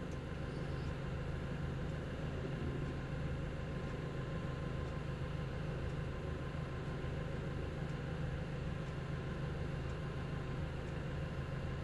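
Doosan 4.5-tonne forklift engine idling steadily, heard from inside the operator's cab, with a few faint clicks.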